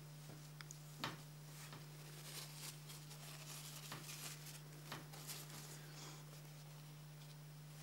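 A folded sheet of white paper rustling and crinkling as it is handled and slid across a wooden table, with a sharp tap about a second in. A steady low electrical hum sits under it all.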